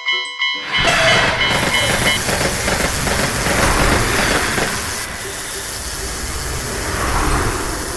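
Level-crossing warning bell ringing about three times a second, swamped under a second in by a loud electric train passing the crossing, a steady rushing rumble of wheels on rail that carries on for the rest of the stretch.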